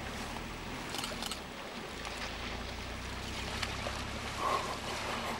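African elephants splashing and sloshing through pond water as they play, with a few short splashes about a second in. A low steady hum runs underneath.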